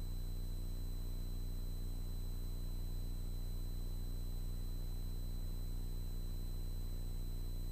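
Low, steady cockpit hum of a Cirrus SF50 Vision Jet in flight, as carried on the intercom recording, with a faint steady high whine above it.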